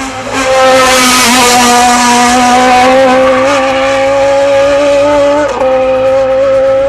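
Toyota Starlet hill-climb car driven hard, its engine held at high revs with an almost steady pitch, dipping briefly about five and a half seconds in, as at a gear change, then pulling on.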